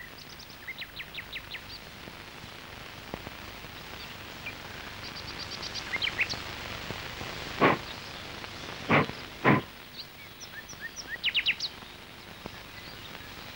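Small birds chirping in short, rapid runs of notes over a steady background hiss, with three sharp knocks, one about eight seconds in and two close together about a second later.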